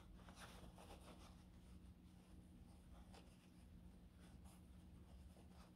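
Near silence with faint, scattered rustling and scratching of fingers working the fabric of a pair of pants, over a low steady hum.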